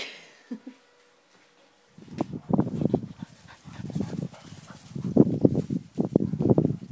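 Springer spaniels loose in long grass, making rough, loud dog noises in four bouts that start about two seconds in.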